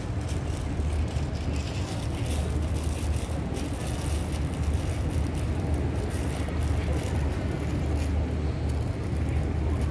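Steady low motor rumble under a wash of outdoor noise.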